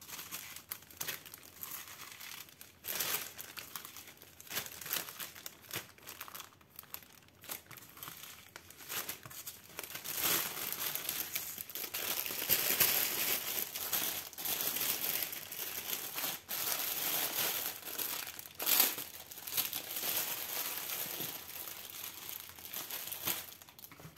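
Thin plastic crinkling and rustling as small zip-lock bags of diamond-painting drills and the canvas's plastic film are handled. It comes in irregular bursts, busier and louder in the middle, with one sharp loud crinkle a few seconds before the end.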